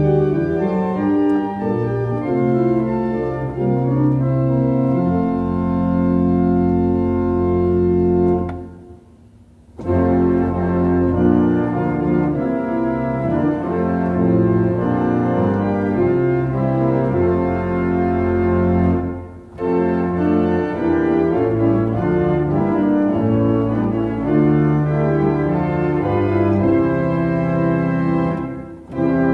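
Church organ playing a hymn tune in full sustained chords. It breaks off briefly between lines three times: about a third of the way in, about two-thirds in, and just before the end.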